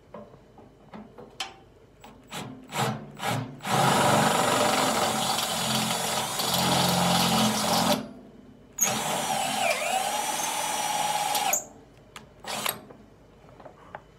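Cordless drill boring into the steel cook chamber of an Oklahoma Joe's Highland smoker. A few short trigger pulls come first, then a run of about four seconds, a brief pause, another run of about three seconds, and two short pulls near the end.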